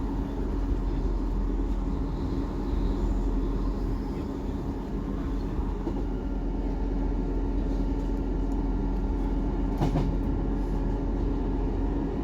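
Class 158 Sprinter diesel multiple unit heard from on board while running: a steady drone from the underfloor diesel engine and wheels on the rails, with one sharp clunk about ten seconds in.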